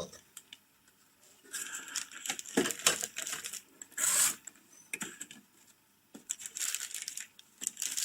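Motherboard packaging being handled: plastic crinkling in several short stretches, with light taps and clicks between them.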